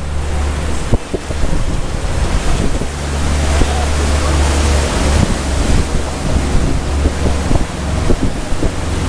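Wind buffeting the microphone over the rush of churning inlet water, as a flybridge cabin cruiser motors past close by under power.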